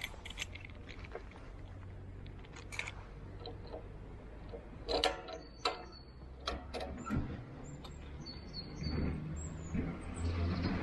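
Honda Forza 125 scooter's single-cylinder engine running with a low, quiet hum, heard through a helmet-mounted camera. Scattered sharp clicks and a few short high chirps sound over it, and the engine hum grows louder near the end.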